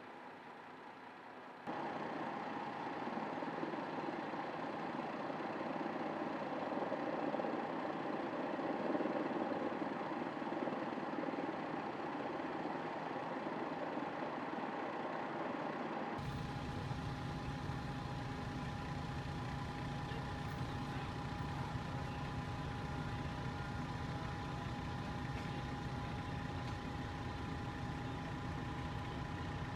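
Steady hum of vehicle engines idling. The sound changes abruptly twice, getting louder about two seconds in and deeper about sixteen seconds in.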